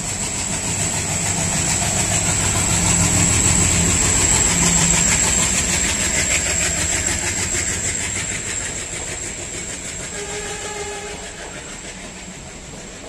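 Passenger train running through a station at speed. The locomotive's heavy chugging diesel engine passes in the first few seconds, then the coaches' wheels clatter over the rail joints and the sound fades away. A brief horn-like tone comes about ten seconds in, over a steady high-pitched whine.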